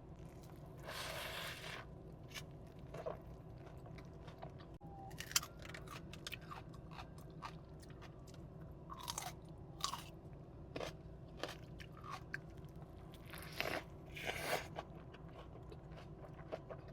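Close-miked eating: a person biting and chewing In-N-Out fast food, with many short crunchy, wet mouth clicks and longer crunching stretches about a second in and again near the end.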